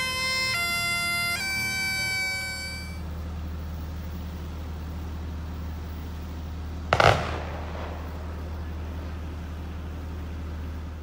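Bagpipes playing the last few notes of a tune, stopping about three seconds in and leaving a steady low rumble. A single brief loud bump comes about seven seconds in.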